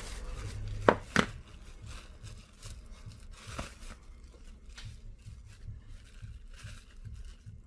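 Hands-on handling noise while cleaning a phone's display panel: two sharp taps about a second in, then soft, irregular scratching and rubbing strokes.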